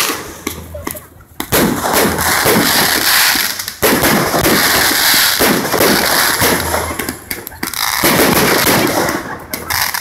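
Aerial fireworks going off in quick succession: loud bangs over dense crackling, with fresh blasts about one and a half, four and eight seconds in.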